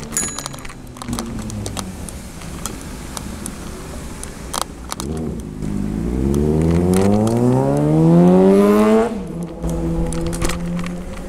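A motor vehicle's engine revving up, its pitch rising steadily for about four seconds and growing louder, then dropping off suddenly about nine seconds in, as at a gear change. A steady engine hum and scattered small clicks and rattles run around it.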